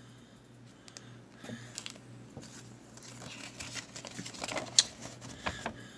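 Faint rustling and small clicks of a cardboard box and plastic packaging being handled, with a sharper tap near the end.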